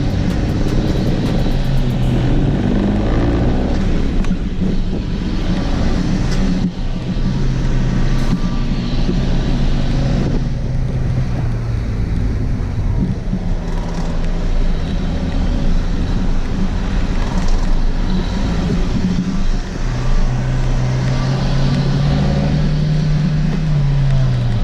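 Lifted first-generation Honda CR-V's four-cylinder engine pulling at low revs as it crawls along an off-road trail, its pitch shifting with the throttle, with a few knocks from the body and suspension. Near the end the engine holds a steady note and then drops.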